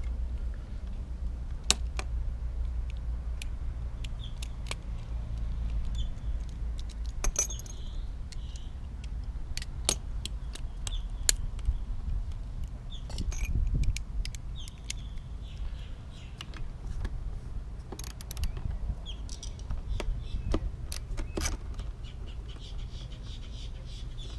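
Irregular small metallic clicks and clinks of hand tools on screws and terminals as the electrode pack's electrical connections on a Lectrasan marine toilet unit are undone, over a low steady rumble.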